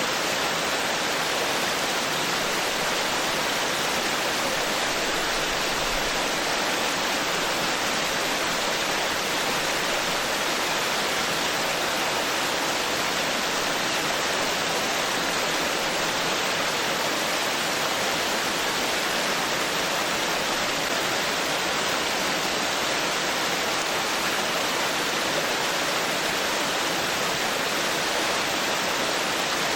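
Forest stream babbling over rocks: a steady, even rush of water.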